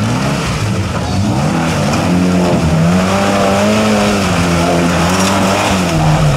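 Engine of a modified Suzuki Samurai trial 4x4 revving up and down repeatedly as it drives through a mud and water pit, its tyres churning through the mud.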